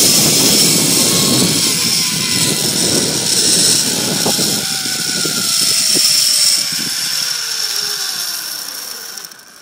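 Zip line trolley pulleys whirring along the cable, with wind rushing over the microphone. The whine falls steadily in pitch as the rider slows, and the noise dies away near the end as the trolley comes to a stop.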